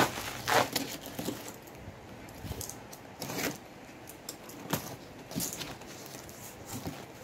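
Unpacking with a utility knife: bubble wrap and packing tape crackling as they are cut and pulled apart, then the knife slitting packing tape on a cardboard box. The sounds come as separate short crackles and scrapes at irregular intervals, the loudest near the start.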